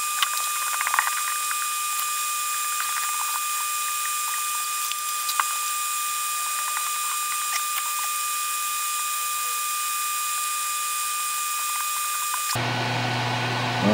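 Small clicks and ticks of hand tools and wire being worked at a soldering bench, over a steady high-pitched hum and hiss with no low end. The sound cuts off abruptly near the end.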